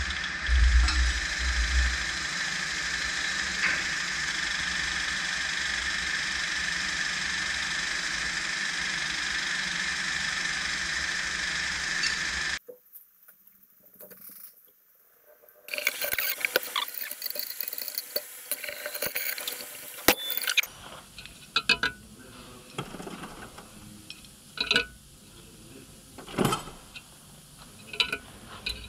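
A steady mechanical hum for the first half, cut off suddenly. Later, metal clicks and taps as valve parts are worked out of a diesel cylinder head.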